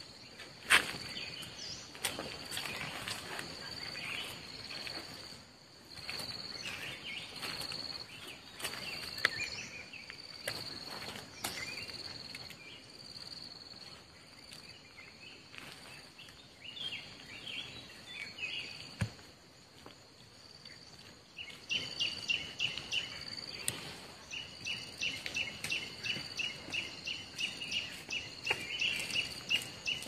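Insects trilling steadily, with scattered sharp clicks and knocks. A rapid series of chirps, about four a second, joins in from about two-thirds of the way through.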